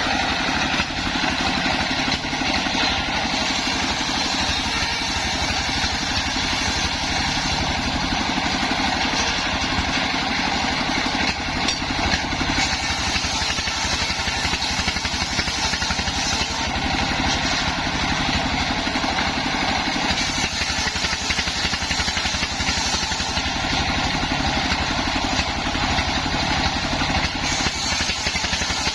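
Home-built mobile circular sawmill running steadily under engine power.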